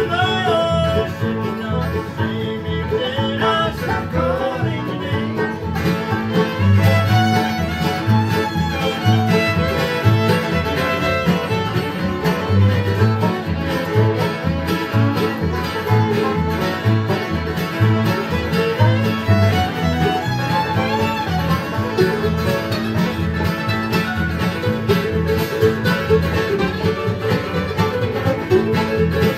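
Acoustic bluegrass band playing an instrumental passage with fiddle, banjo, acoustic guitars and plucked upright bass keeping a steady beat.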